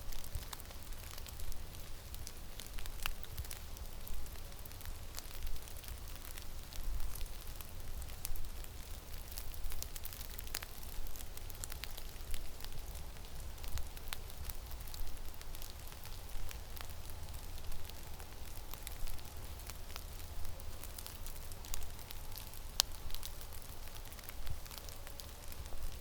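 Blizzard wind buffeting the microphone in a low, steady rumble, with dense, irregular crackling ticks throughout.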